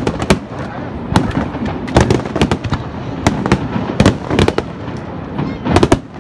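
Barrage of aerial firework shells bursting, many sharp booms in quick clusters over a constant rumble, thinning out briefly shortly before the end and then a last tight cluster.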